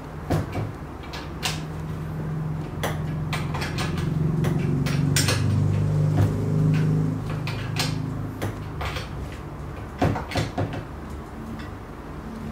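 Scattered metallic clicks and knocks of a hand tool working the bar-mounting nuts on a chainsaw as they are tightened down. A low steady hum sits underneath through the middle.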